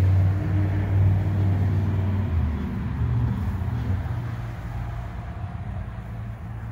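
An engine running steadily, a low hum that shifts pitch a few times and eases slightly toward the end.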